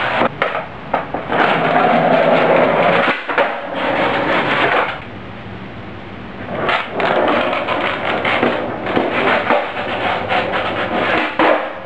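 Skateboard rolling on a concrete floor, with sharp clacks and knocks as the board hits the floor and ramps; it goes quieter for a second or two around the middle, then the rolling and clacks pick up again.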